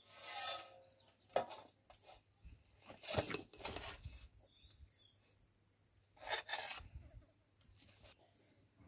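Chicken rice being served with a metal spatula from a metal cooking pot onto a stainless steel plate: several short scrapes of metal on metal, and rice dropping onto the plate.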